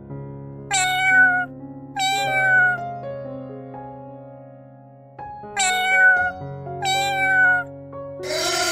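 Kitten meowing four times, in two pairs, each meow high and sliding slightly down in pitch, over soft piano music. Near the end a louder, harsh and noisy sound starts.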